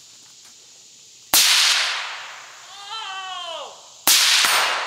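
Two unsuppressed rifle shots from a Geissele Super Duty 5.56 AR-15 with a muzzle brake, fired from kneeling about two and a half seconds apart, each a sharp crack that echoes off through the woods. Between the shots comes a short call that falls in pitch.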